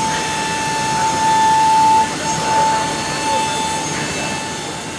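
Holztek RT1325V CNC router's spindle running with a steady high whine while the bit cuts through a wooden board, over the rushing noise of the cut. The whine drops out briefly about two seconds in, then comes back.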